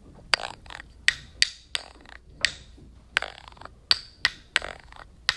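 A rhythmic beat of sharp percussive clicks, two or three a second in an uneven pattern, each with a short ring after it.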